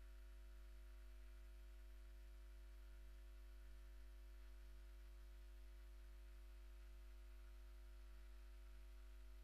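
Near silence: only a steady low hum and a faint hiss.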